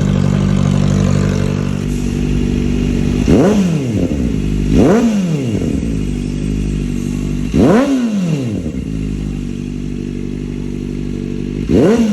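Kawasaki ZX-4RR's 399 cc inline-four, breathing through an aftermarket VMAX Racing muffler, idling and then blipped four times. Each rev jumps up sharply and falls straight back to idle.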